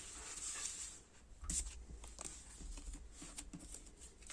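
Quiet handling of Panini sticker packets and stickers: a soft paper rustle, then scattered light taps and clicks.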